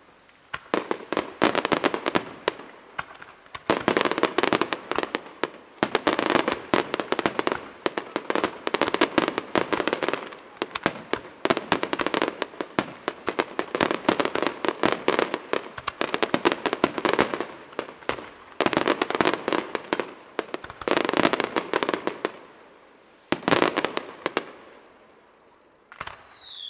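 Aerial fireworks display: rapid volleys of bangs and crackle from shells bursting, coming in salvos of a few seconds with short pauses between them. Near the end a whistle with falling pitch sets in.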